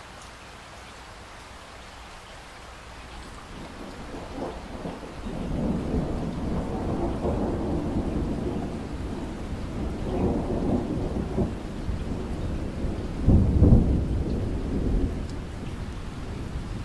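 Steady rain with a long rolling peal of thunder that builds from about four seconds in, rumbles in waves, and peaks in one loud crash about three-quarters of the way through before easing off.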